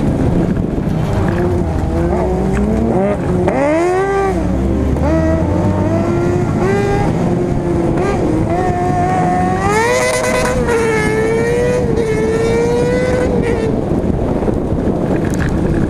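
Daihatsu Charade 1.3i autocross car's engine heard onboard, revving hard, its pitch climbing and dropping with throttle and gear changes: a quick rise and fall about four seconds in, then a long climb that holds until near the end. A steady low rumble runs underneath.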